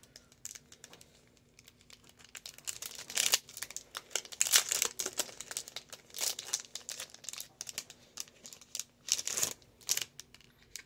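Small plastic packaging crinkling and crackling in irregular bursts as fingers work a lapel pin's pack open, starting about two seconds in.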